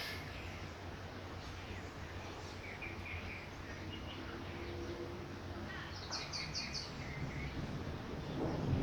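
Light rain as a steady hiss, with birds chirping: a few short calls a few seconds in and a quick run of high chirps about six seconds in. A low rumble of thunder begins to swell near the end.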